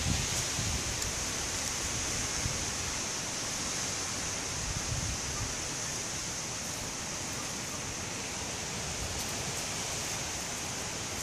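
Steady outdoor background hiss with a constant high whine on top, even throughout, with no distinct scratches or calls standing out.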